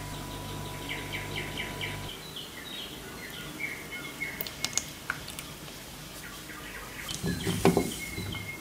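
Silicone spatula stirring and scraping melted chocolate in a stainless steel bowl over a bain-marie. A steady hum stops about two seconds in, short high chirps run through the first few seconds, and a louder burst of scraping and knocking comes near the end.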